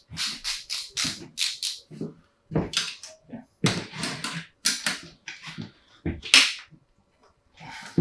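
A quick run of sharp knocks, about four a second, for the first two seconds, then irregular, louder knocks with short pauses between them, the loudest a little over six seconds in.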